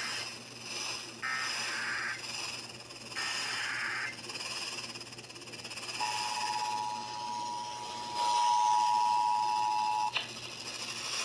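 Emergency Alert System header data bursts, harsh modem-like screeches of about a second each, repeated two more times at about two-second intervals, followed by the EAS two-tone attention signal, which sounds steadily for about four seconds and cuts off with a click. This is the opening of a Required Monthly Test received off the air, with steady radio hiss underneath.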